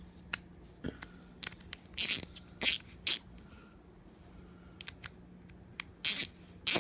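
Plastic tool parts and packaging being handled: scattered clicks, scrapes and short crinkly rustles, loudest about two seconds in and again near the end.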